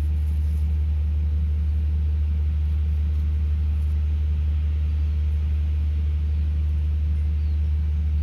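A steady low hum of an engine running at constant speed.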